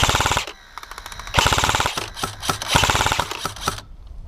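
Airsoft electric gun (G&P Stoner 63 AEG) firing several short full-auto bursts, a rapid even rattle of shots. The bursts come right at the start, at about one and a half seconds, and at about three seconds, with a quieter patter in between.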